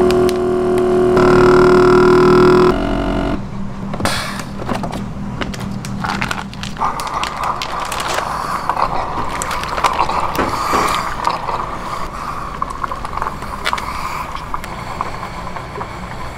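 A loud steady hum cuts off about three seconds in, followed by a plastic vacuum-sealed bag of marinated meat crinkling and water splashing as the bag is handled and lowered into a sous vide water bath.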